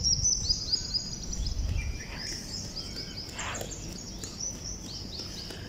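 Small birds chirping rapidly and continuously in high, quick notes, with one longer falling call about three and a half seconds in. A low rumble underlies the first two seconds.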